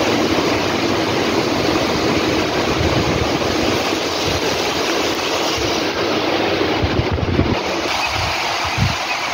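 Heavy rain falling, a steady dense rush of rain with a low, uneven rumble beneath it.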